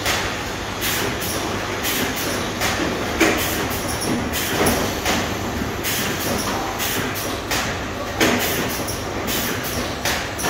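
Candle-refill production line running: a steady machinery and conveyor hum with irregular knocks and clatter every second or so as the rows of filled candle cups move along the belts.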